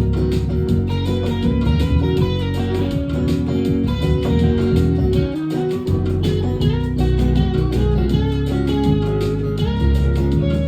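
Guitar instrumental break between sung verses: separate picked melody notes over steady chords and a low bass.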